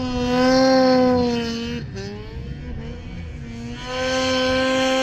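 Two-stroke mountain snowmobile engine held at high revs while the sled ploughs through deep powder on a steep sidehill. The pitch is high and steady, eases off around two seconds in, then climbs back to full revs near the end.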